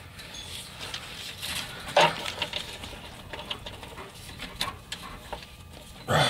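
Small clicks and taps of hands handling a truck's hydraulic clutch slave cylinder on its bracket, with two louder knocks, one about two seconds in and one near the end.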